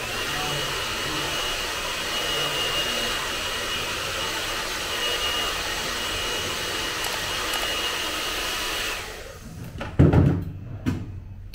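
Handheld hair dryer blowing steadily with a thin high whine for about nine seconds, then switched off. A loud knock comes about a second later.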